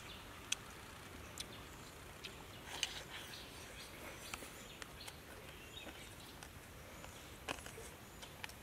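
Quiet forest ambience: a faint steady hiss with scattered sharp clicks and ticks, the loudest about three seconds in and again near the end.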